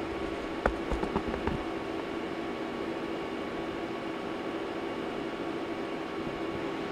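Steady whirring hum of bench test-equipment cooling fans, with a few light knocks about a second in.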